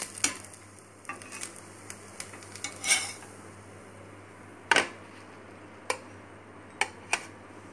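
Steel spatula scraping and knocking against a cast-iron tawa as a slice of egg-fried bread toast is lifted off, over a faint sizzle of ghee. A handful of sharp metal clicks, the loudest about three seconds in and just before five seconds in, with two more near the end.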